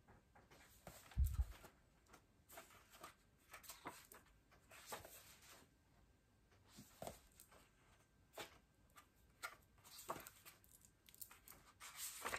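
Faint paper handling: pages of a small coloring pad being turned, with short rustles and clicks every second or so and one soft low thump about a second in.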